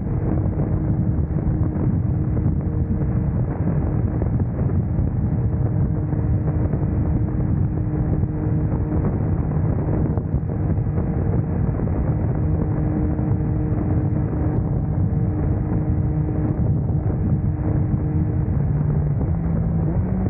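Yamaha Tracer motorcycle engine running steadily at highway speed under heavy wind rush on the microphone. Near the end the engine note steps up in pitch as it accelerates.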